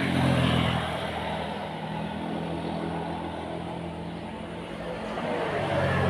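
Steady low engine drone of a passing motor or aircraft, swelling in the first second and again near the end.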